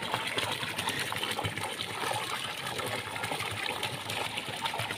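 Water in a hot-spring pool running and splashing steadily, with small sloshes as a person wades through it waist-deep.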